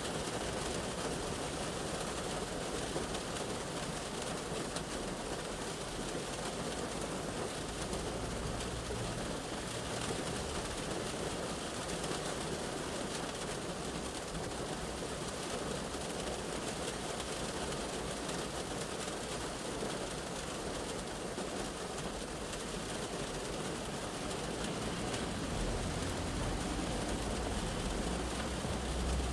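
Rain shower falling steadily on a car's roof and windows, heard from inside the car. A low rumble swells near the end.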